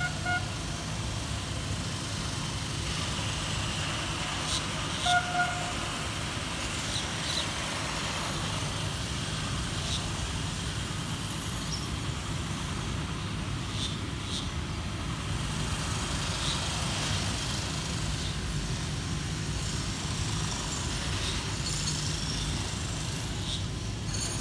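Kawasaki–CRRC Sifang C151A MRT train running through an elevated station without stopping, a steady low rumble. Its horn gives two short blasts, a faint one at the very start and a louder one about five seconds in, warning people on the platform that the train will not stop.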